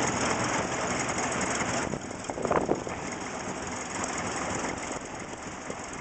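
20 hp Nichols & Shepard steam traction engine running belted to a sawmill: a steady mechanical clatter with hissing. The sound eases slightly about two seconds in.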